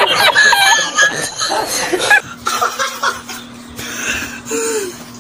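A man's high-pitched laughter that cuts off suddenly about two seconds in, followed by a quieter stretch with a steady low hum.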